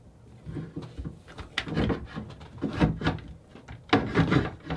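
Irregular knocks, bumps and rubbing from someone moving about and handling things in a small boat interior, with a few heavier thumps about two, three and four seconds in.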